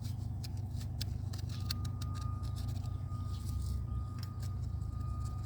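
Steady low engine-like drone with light, irregular clicks as a hand grease gun is pumped into an excavator pivot's grease fitting. A faint thin whine comes in about a second and a half in.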